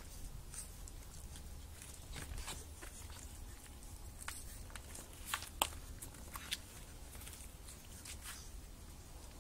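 Shih Tzu puppies scrabbling about on concrete: light scattered clicks and scuffs of their paws and claws, with a few sharper clicks between about five and six and a half seconds in.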